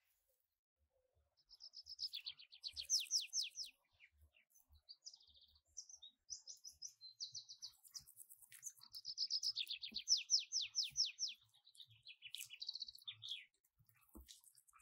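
A songbird singing: two phrases of rapid falling notes, one starting about a second and a half in and another about seven seconds later, with short chirps and high buzzy trills between them.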